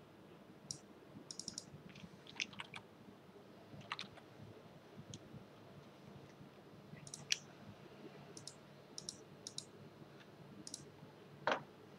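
Faint, scattered computer mouse and keyboard clicks, some in quick runs of two or three, with a slightly stronger click near the end, over a low steady room hum.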